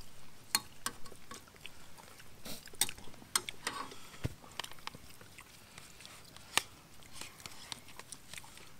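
A scatter of light clicks and taps at irregular intervals, most of them in the first half and thinning out toward the end.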